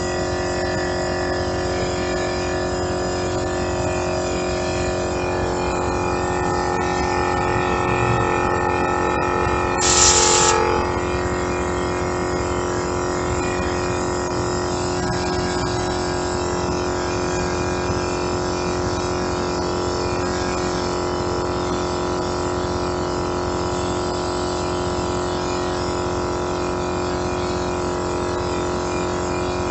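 Tozalazz 12-volt portable air compressor running steadily under load, inflating a truck tire toward 80 psi: a loud, dense hum with several steady tones. About ten seconds in there is one brief hiss-like burst, the loudest moment.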